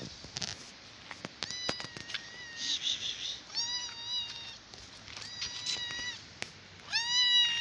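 A kitten meowing repeatedly, about five short high-pitched meows spaced a second or so apart, the loudest one near the end.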